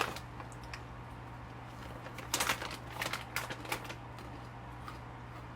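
Tarot cards being handled or shuffled: a few short papery rustles and clicks, bunched together in the middle, over a steady low electrical hum.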